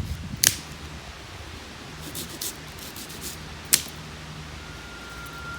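Two sharp clicks over a low steady hum, with fainter ticks between them; near the end a bird starts a thin, steady whistle.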